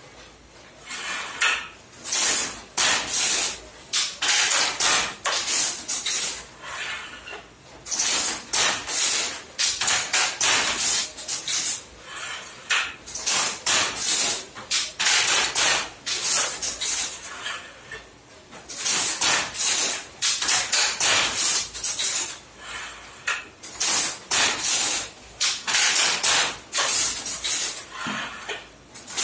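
Handloom weaving a korvai border: rapid hard wooden and metal clacks from the batten and shuttle mechanism, in runs of several seconds broken by short pauses.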